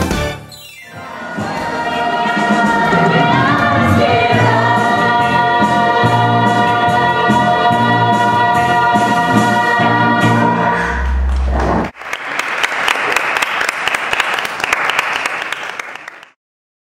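A stage-musical ensemble sings full-voiced with a band, building to a long held final chord that cuts off about twelve seconds in. The audience then applauds for a few seconds before the sound stops abruptly.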